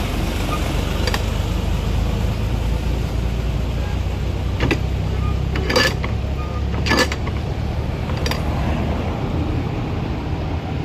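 Steady low rumble of road traffic, with several sharp metallic clanks and knocks from a lever-operated hand juice press squeezing sweet lime halves. The loudest clanks fall about halfway through.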